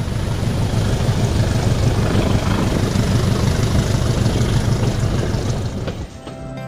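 Diesel locomotive engine running with a steady low drone, growing louder over the first two seconds and stopping about six seconds in.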